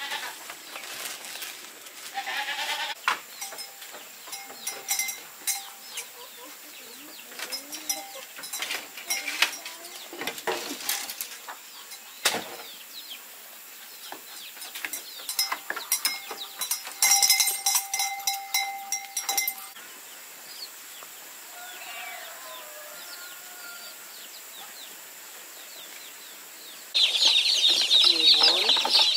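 Scattered rustling and knocks with occasional farm-animal calls, then near the end a sudden loud chorus of many baby chicks peeping all at once.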